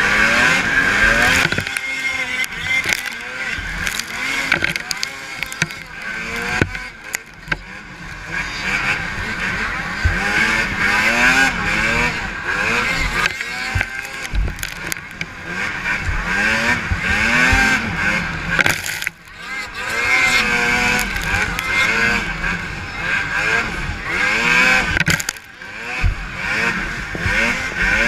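Several racing snowmobile engines revving, their pitch repeatedly climbing and falling as the sleds accelerate and back off around a snocross track. The engine notes overlap, with short dips in level about a third of the way in, two-thirds of the way in and near the end.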